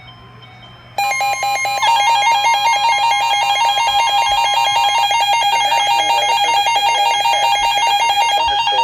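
Several weather alert radios going off at once for a severe thunderstorm warning: rapid pulsing alarm beeps at two slightly different pitches start about a second in and overlap, with a steady alert tone under them for about four seconds.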